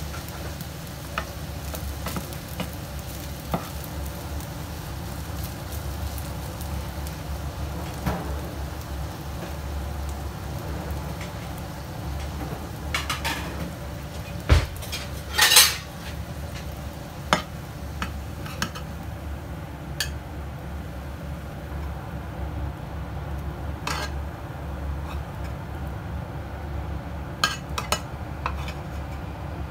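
Rice and diced chicken frying in a nonstick pan with a steady sizzle, while a wooden spatula scrapes and taps against the pan. A louder scrape and clatter come about halfway through, and a metal spatula clinks on the pan near the end.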